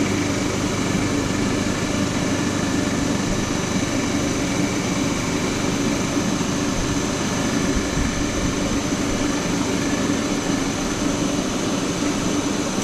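Comec cylinder-head resurfacing machine running steadily: its motor and spinning cutter head give an even drone with a thin high whine over it.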